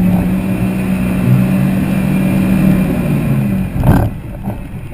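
Polaris RZR XP side-by-side's engine running at a steady throttle. Near the end the engine note falls away, and there is a sudden loud knock.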